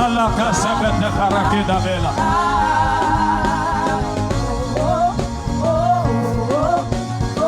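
Wordless worship singing: a voice sliding through long, wavering melodic runs over sustained instrumental backing with a steady low bass.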